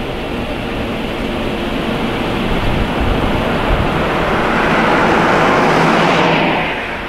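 A truck driving past close by on the road: the tyre and engine noise swells over a few seconds and drops away quickly near the end, over a steady low rumble.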